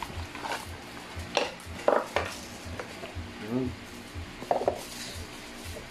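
Cardboard gift box and plastic accessory bags being handled: scattered clicks, taps and crinkly rustles, over quiet background music with a steady beat.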